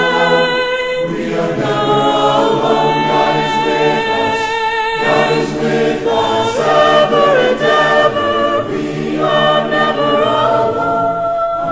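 Background music: a choir singing long, held notes that shift in pitch every second or so.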